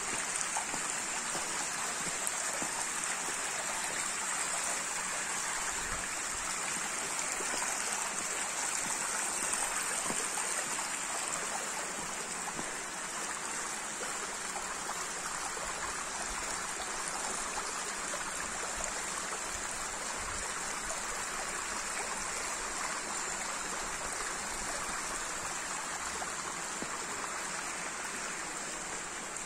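Rainwater running steadily along an open stone drainage gutter: a continuous rush of flowing water, with rain falling.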